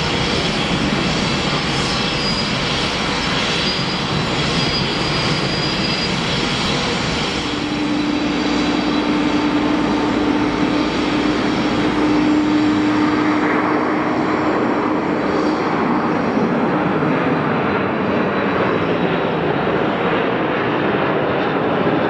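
The twin Pratt & Whitney JT8D turbofans of a Kawasaki C-1 military transport running at takeoff power as the aircraft rolls down the runway, lifts off and climbs away. The jet noise is loud and steady, with a low, even tone coming through for several seconds in the middle, around lift-off.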